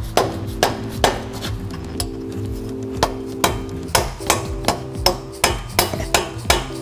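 Mallet blows tapping a steel axle sleeve into a Dana 44 front axle housing tube: a dozen or so sharp knocks, uneven at first, then coming faster, about two to three a second.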